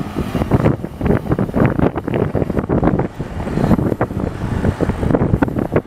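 Wind buffeting the microphone in uneven gusts while riding along at about 27 km/h.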